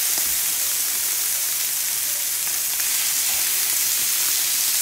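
Seasoned beef steaks sizzling steadily on a griddle turned up to full heat, a constant searing hiss as more steaks are laid down with tongs.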